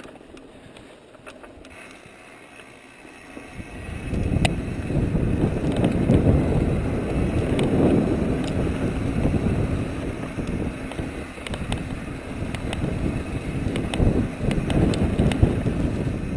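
Mountain bike rolling down a dirt singletrack: tyre and trail rumble with sharp clicks and rattles from the bike, mixed with wind buffeting the microphone. The noise grows much louder about four seconds in and stays loud.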